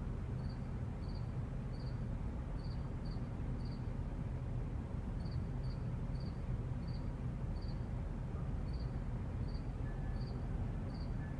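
Night ambience: a cricket chirping in short high pulses, about one to two a second with a brief pause midway, over a steady low rumble of distant traffic.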